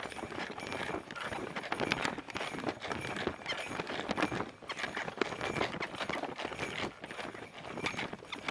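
A beagle trotting along stone paving, heard from a camera strapped to the dog: a quick, uneven run of clicks and knocks from its steps and its jostling gear.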